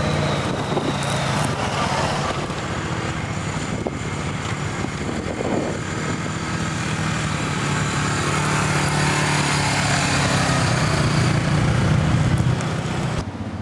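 ATV engines running as the quads ride along a rough grassy track, growing louder as one drives up close, then breaking off abruptly shortly before the end.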